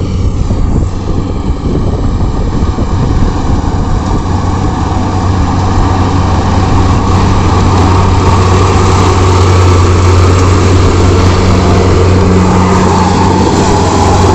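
Combine harvester running steadily under load as it cuts and threshes rice paddy: a loud, constant engine hum, with a higher whine of the machinery growing stronger in the second half.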